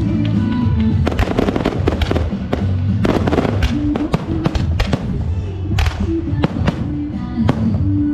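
Rapid, irregular bangs and crackles of firecrackers and fireworks going off, over loud music with a steady bass line.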